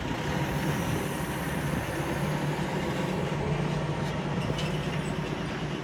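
Low, steady rumble of a heavy diesel engine running, with a constant low hum underneath.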